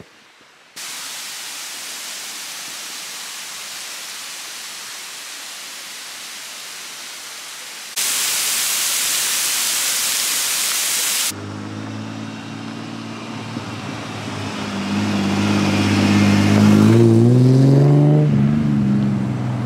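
Waterfall rushing, a steady hiss that jumps louder about eight seconds in. From about eleven seconds in, a Nissan GQ Patrol 4WD's engine approaches on a dirt road, growing louder with its engine note climbing near the end as it drives up.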